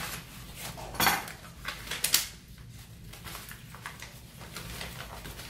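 Brown paper food wrappers crinkling and rustling as they are handled and unwrapped. Two louder sharp sounds come about one and two seconds in, the second the loudest.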